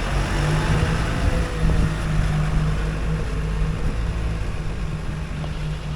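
Diesel engine of a JCB backhoe loader running under load; its revs step up right at the start and then hold steady.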